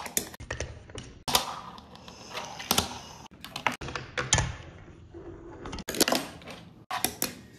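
Fingerboard (a miniature finger skateboard) popping, landing and rolling on a wooden tabletop and small ramps: a dozen or so sharp, irregular clacks with softer wheel rolling in between.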